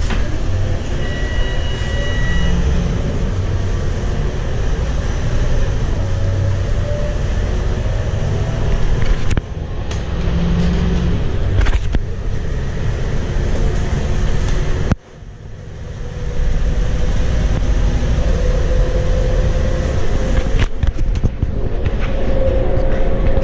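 Interior of a Scania K230UB bus on the move: its 8.9-litre five-cylinder diesel and ZF six-speed automatic running under road rumble and rattles, with a slowly rising whine as the bus picks up speed, twice. A short electronic beep about a second in, and a sudden brief drop in the sound about fifteen seconds in.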